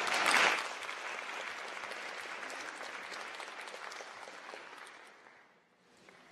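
Audience applauding an award recipient, loudest at the start and tapering off, dying away about five seconds in.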